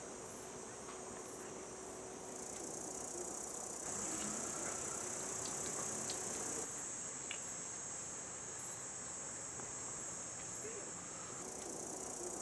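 Chorus of insects shrilling steadily at a high pitch, swelling and easing in strength a few times.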